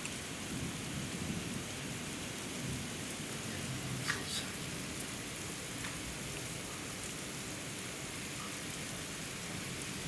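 Very heavy rain pouring steadily onto pavement and lawn. A low rumble runs through the first few seconds, and a single sharp tap comes about four seconds in.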